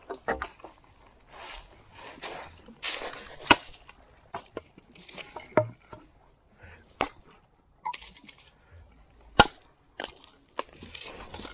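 Dry driftwood sticks being gathered: a series of sharp wooden cracks and knocks at irregular intervals, between crunching steps on coral and shell gravel.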